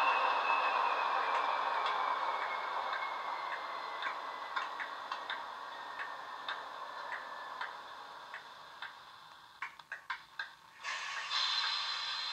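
Class 20 diesel sound from a model locomotive's DCC sound decoder, playing through its small speaker: the engine runs down, a high whine gliding downward and fading while slow, regular ticks spread further apart. Near the end come a quick cluster of clicks, then a sudden hiss and a steady high tone.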